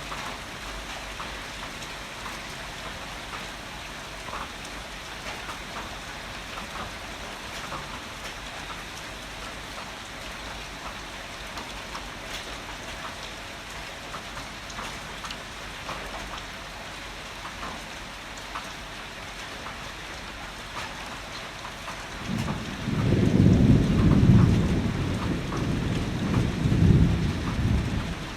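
Heavy rain falling steadily, with scattered drip ticks. About 22 seconds in, a long roll of thunder comes in low and loud, peaking twice over some six seconds before fading.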